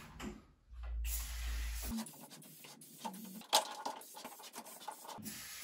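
Aerosol can of silicone spray hissing in a burst of about a second, lubricating under a treadmill's running belt. It is followed by rubbing and handling of the belt with one sharp click, and a second spray burst starts near the end.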